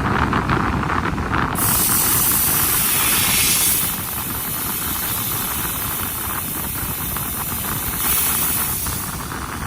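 CNC laser cutting machine at work: the cutting head's assist gas hisses loudly in two spells, a few seconds long, about two seconds in and again near the end, over a steady low machine rumble.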